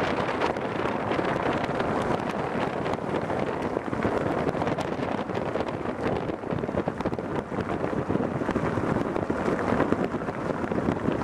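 Steady rush of road and wind noise from a moving car, with wind buffeting the microphone in quick, irregular gusts.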